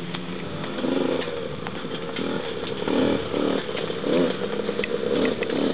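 A small dirt bike's engine revving up and down as it is ridden, its pitch rising and falling several times, most often in the second half.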